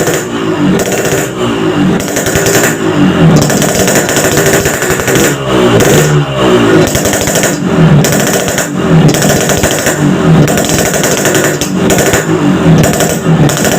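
Yamaha RX-King's single-cylinder two-stroke engine revved in repeated throttle blips through its bored-out exhaust, rising in pitch with each blip about once a second. The reworked muffler is meant to give it a crisp, raspy 'garing ngorok' tone.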